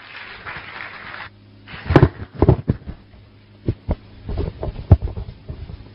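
Table microphone being handled: irregular thumps and knocks over a steady low hum, after about a second of soft rushing noise.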